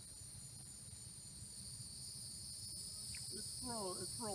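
Insects trilling steadily in a chorus, a faint high-pitched hum that holds on two pitches, over a low rumble.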